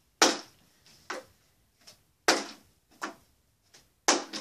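Plastic water bottle being flipped onto a wooden dresser top again and again: a sharp knock about every two seconds as it lands, with lighter knocks and clatters between.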